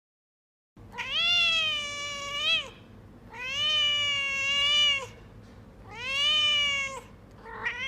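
Domestic cat meowing: three long drawn-out meows, each rising a little and dropping at the end, then a shorter meow starting near the end, after a brief silent gap at the start.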